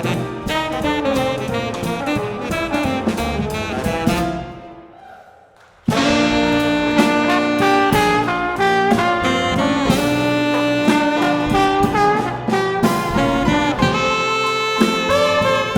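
Live jazz quintet playing: trombone and saxophone over piano, upright bass and drums. A little after four seconds in the band drops out and the sound dies away, then everyone comes back in together about six seconds in with held horn notes.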